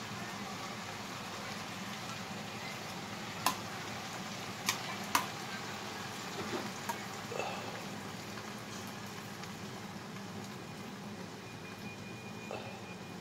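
Vegetables sizzling steadily in a frying pan, with a few sharp clinks of utensils about three and a half to five seconds in.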